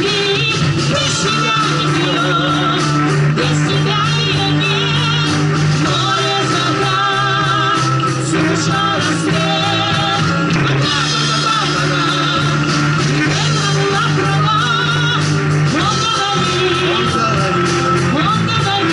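Live rock band through PA speakers: a woman singing over electric and acoustic guitars, bass and drums.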